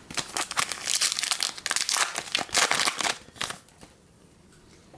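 Foil wrapper of a Topps Chrome trading-card pack being crinkled and torn open by hand, a dense run of crackling that stops about three and a half seconds in.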